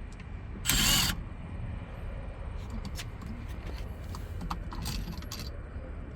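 A cordless drill/driver with a hex bit spins briefly about a second in, backing out a steering-wheel screw, followed by light clicks and clinks of the screws and tools.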